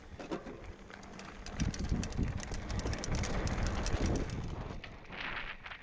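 Mountain bike rolling fast down a loose dirt and gravel trail: tyres crunching over the dirt and the bike rattling with frequent clicks over bumps, over a low rumble of wind on the microphone.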